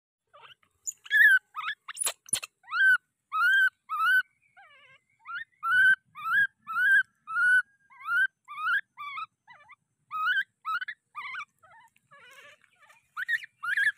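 Baby macaque giving a long series of short, high-pitched calls, each rising then falling, often about two a second, with a few pauses. A couple of sharp clicks come about two seconds in.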